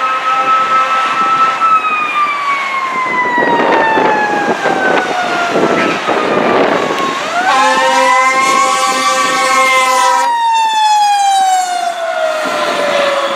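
Fire engine siren wailing: the tone holds high, then winds slowly down for several seconds. About seven seconds in it sweeps back up, while a horn blasts for about three seconds. It then winds down again as the engine passes, over traffic noise.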